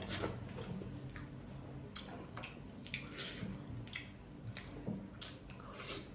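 Close-up eating sounds: a person chewing a mouthful of noodles, with irregular short wet clicks and smacks from the mouth.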